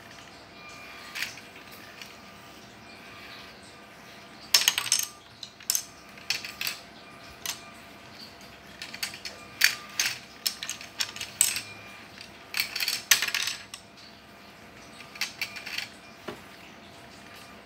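LEGO colour-sorting robot at work: its plastic gears and beak mechanism click and rattle in several bursts as it moves and drops LEGO bricks into the sorting bins.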